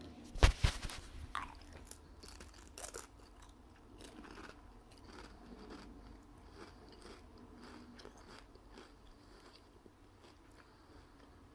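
Biting into a Pringles Original potato crisp with a loud crunch about half a second in, then crunchy chewing that grows fainter over the following seconds.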